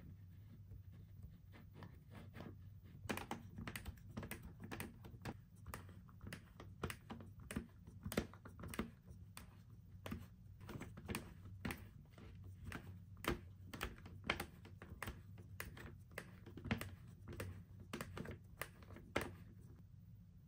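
Irregular, faint plastic clicks and clacks from a Play-Doh snow globe playset being pressed and twisted by hand as it pushes dough through and chops it into bits. The clicking starts about three seconds in and stops near the end, over a low steady hum.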